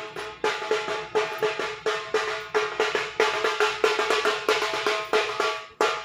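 Rhythmic percussion music: sharp, ringing pitched strokes, about three a second, in a steady beat that thins out near the end.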